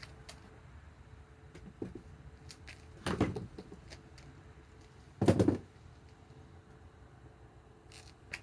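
Two short clunks about two seconds apart, with a few light clicks in between: tools and hardware being handled and set down, not a drill or impact wrench running.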